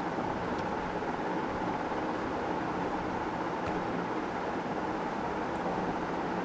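Steady background hiss and low hum, with a few faint keyboard clicks as a short word is typed.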